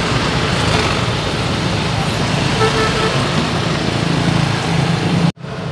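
Steady street traffic noise with a low engine rumble. It cuts out abruptly for a moment near the end.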